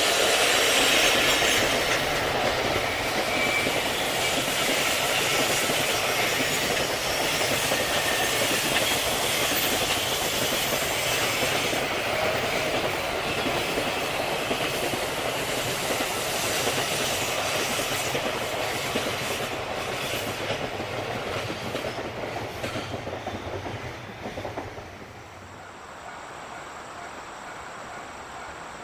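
Freight train passing close by, its wheels clattering over the rail joints, the sound dropping away about 25 seconds in.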